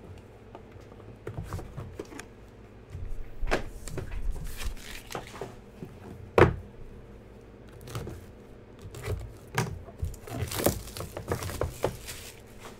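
Hands handling small white cardboard card boxes and clear plastic wrapping: scattered rustling, crinkling and light knocks. One sharp tap comes about six seconds in, and the rustling gets busier near the end.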